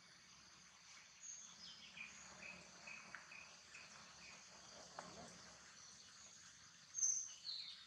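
Faint outdoor ambience: a steady high-pitched insect chorus, with a bird calling a run of about six short, evenly spaced notes from about two seconds in. A louder, high, falling bird call comes near the end.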